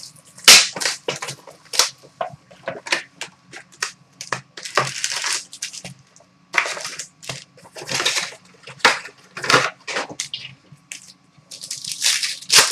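Sports-card box and wrapped card packs being handled: cardboard and pack wrappers crinkling and rustling in a quick run of sharp crackles, with a few longer tearing rustles, as the packs are pulled out of the box and laid down.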